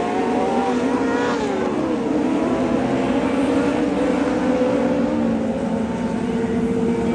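Several dwarf race cars' engines running together at racing speed on a dirt oval, their pitches overlapping, with one rising in pitch as it accelerates about a second in.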